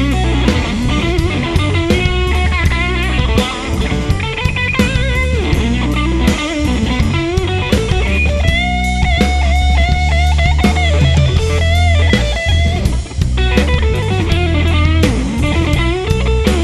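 Live blues band: lead electric guitar playing bent, wavering notes over bass guitar and drum kit, with one high note held for about three seconds some eight seconds in.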